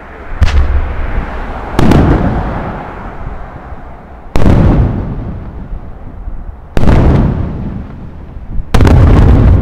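Aerial firework shells bursting overhead: five loud bangs a second or two apart, each followed by a long echoing rumble that dies away.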